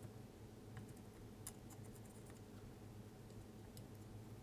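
Near silence: a low steady hum with a few faint, scattered clicks.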